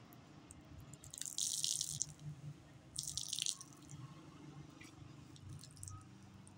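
Water splashing at a car wash in two short hissing bursts about a second and a half apart, over a low steady hum.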